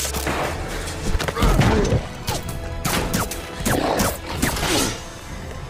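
Action-film fight soundtrack: heavy thuds and smashing crashes as bodies hit lockers and walls, over a dramatic music score.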